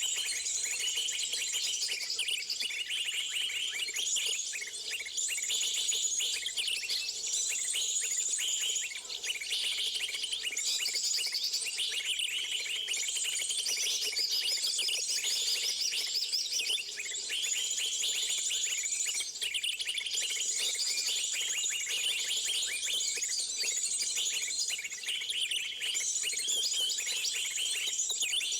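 Many small birds chirping and twittering at once in a dense, unbroken chorus of high chirps, the sound of birds gathering to a bird-luring (pikat) call.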